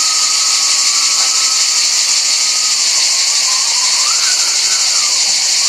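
Brushless mini-quad drone's 1104 motors and propellers whining in flight over a steady high hiss. The motor pitch rises and falls once about two-thirds of the way in as the throttle is pushed and eased.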